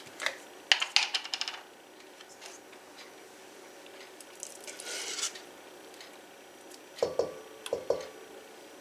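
A jar of mayonnaise being opened: a quick run of small clicks and crackles, then the rustle of its paper seal being peeled off. Near the end, a few dull knocks as a spatula scoops mayonnaise from the jar into a stainless steel bowl.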